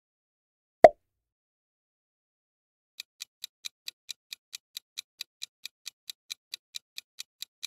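A single short pop, then a countdown timer's clock-tick sound effect ticking quickly and evenly, about four to five ticks a second, starting about three seconds in.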